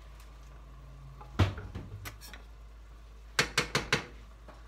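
A wooden spoon knocking against a pan of browning ground beef: one louder knock with a dull thud about a second and a half in, a couple of light taps, then four quick knocks near the end.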